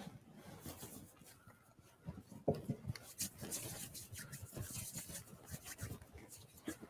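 Faint rustling and a scatter of light clicks and knocks as altar items are handled while the priest and server prepare the altar at the offertory, with one sharper knock about two and a half seconds in.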